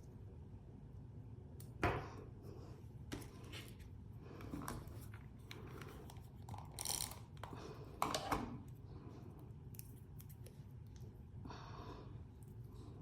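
Small paper pieces being handled and set onto a scrapbook page: soft paper rustles and scattered light taps and clicks, the sharpest about two seconds in and again around eight seconds.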